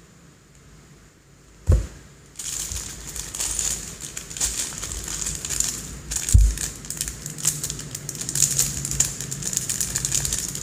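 Clear plastic parts bag of small toy building bricks crinkling as hands squeeze and turn it. A single knock comes just under two seconds in, and steady crinkling starts shortly after.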